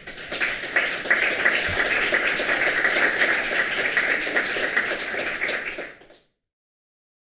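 Audience applauding: a dense, steady patter of many hands clapping that stops abruptly about six seconds in.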